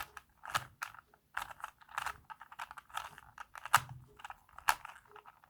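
Plastic Rubik's Cube layers being turned by hand: a run of quick, irregular clicks and clacks as the faces snap into place, with two sharper clacks in the second half.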